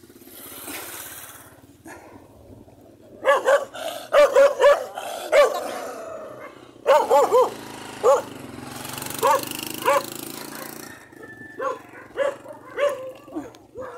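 Dogs barking in quick runs of short barks, thickest through the middle, then a few scattered barks near the end.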